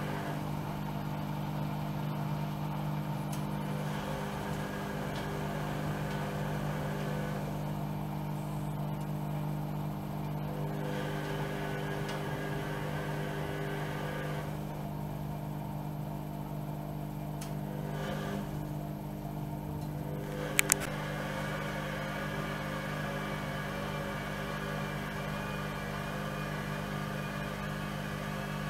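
Bauknecht WAE8575 washing machine running a quick 40 °C wash, with a steady low motor hum. The drum turns for a few seconds at a time, with pauses of a few seconds between turns. Two sharp clicks come about two-thirds of the way through.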